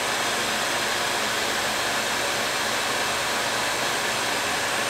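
Electric heat gun blowing steadily, shrinking heat-shrink tubing over a spliced wire connection.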